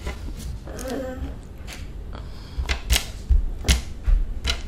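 Plastic-wrapped candy bars being slid and tapped on a metal tray: a handful of short sharp clicks a second or so apart, with low bumps against the table in the second half.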